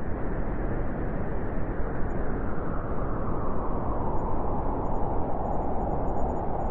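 Wind howling, a steady dense rush, with a whistling tone near the middle of its range that grows stronger over the second half.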